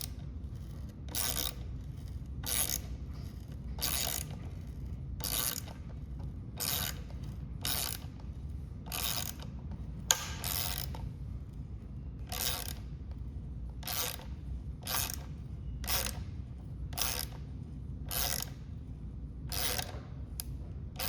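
Tension bolt of a Riversmith Quick Release roof-rack mount being cranked with a wrench in short rasping strokes, about one a second, with a sharp crack about ten seconds in. The mount is being over-tightened far past snug and is beginning to fail, ending with a broken strap.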